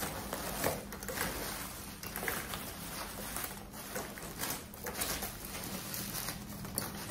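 Bubble wrap crinkling and polystyrene packing peanuts rustling and squeaking as hands rub and grip a wrapped package in a cardboard box. The sound is an irregular run of small crackles and scrapes.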